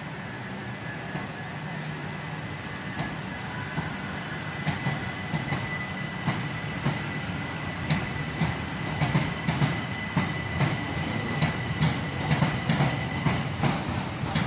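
A Southern electric multiple-unit train pulling out along the platform and gathering speed. Its wheels click over the rail joints in a rhythm that quickens and grows louder, over a steady high whine.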